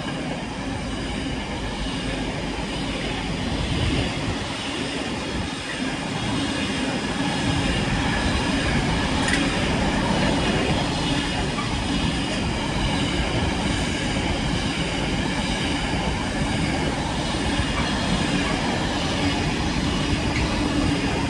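Intermodal freight train of container flat wagons running past at speed: a steady noise of steel wheels on rail, with a faint high wheel squeal over it.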